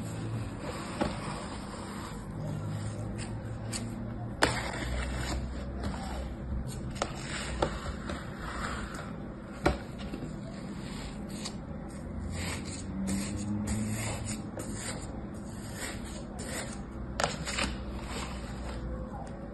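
Kinetic sand being scraped, cut and broken apart with a plastic scoop and fingers in a plastic tray: continuous soft scraping and crumbling, with a few sharp clicks.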